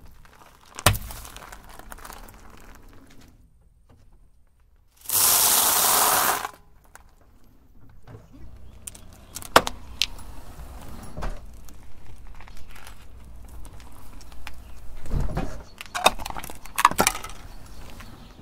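Car tyre slowly rolling over and crushing small plastic objects and tubes on asphalt, giving a series of sharp cracks, clicks and crunches. About five seconds in there is a loud steady hiss lasting about a second and a half.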